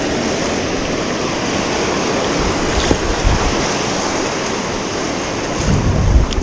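Ocean surf washing onto the beach, with wind buffeting the microphone in low rumbling gusts, strongest near the end.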